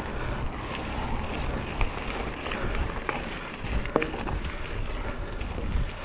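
Wind buffeting the microphone of a handlebar-mounted camera over the sound of a hardtail mountain bike riding a dry dirt trail: a steady rush of tyre and wind noise with scattered sharp clicks and rattles from the bike over bumps.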